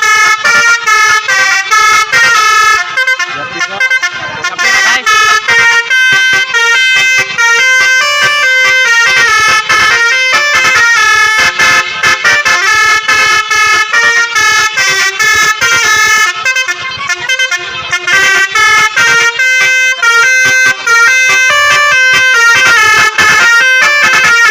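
Basuri telolet multi-tone bus air horn playing a rapid melody, the notes stepping up and down several times a second with short breaks between phrases.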